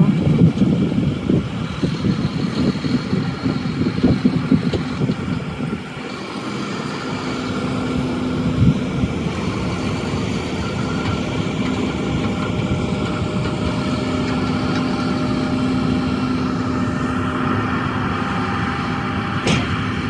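Diesel engine of a Case IH Quadtrac tracked tractor pulling a grain cart, running steadily as it drives past. The sound is louder and rougher for the first six seconds, then settles into a steady engine drone.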